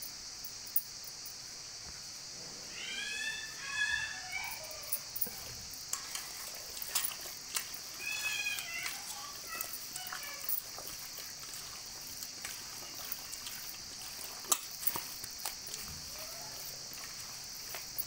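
Hands mixing raw chicken pieces with spice powder in a steel bowl, with scattered wet clicks and knocks, over a steady high chirring of crickets. Two short runs of high, falling calls come about three seconds in and about eight seconds in.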